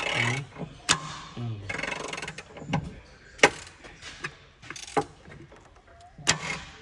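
Scattered sharp metal clicks and knocks of hand tools and engine parts being handled on an open engine, about four separate knocks with rustling and scraping in between.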